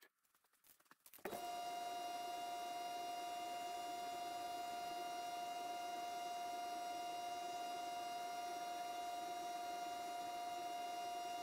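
Garage exhaust fan starting about a second in and then running steadily, a constant whine over a motor hum.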